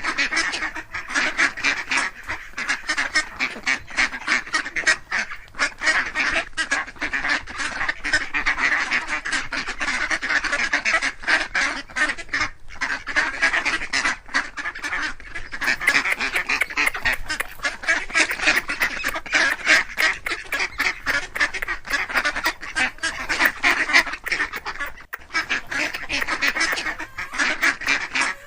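A flock of ducks quacking without pause, many calls overlapping in a dense, rapid chatter.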